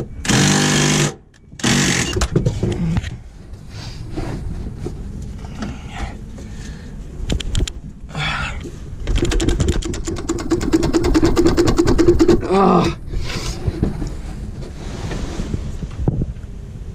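Mechanical workshop noise from freeing a stuck truck gearbox, with knocks and metal clatter. In the middle comes a few seconds of fast, even mechanical rattling. Near the start are two short strained grunts.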